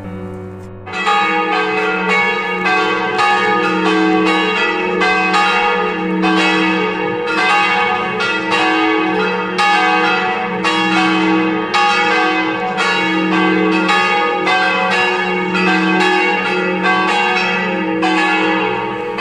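Church bells ringing in a steady peal, about two strokes a second, each stroke leaving a long ringing hum beneath it. The peal starts about a second in and cuts off suddenly at the end.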